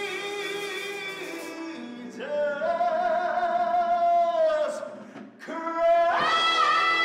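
A singer performing a stage number, holding three long notes with vibrato, each higher than the last; the third and highest begins about six seconds in.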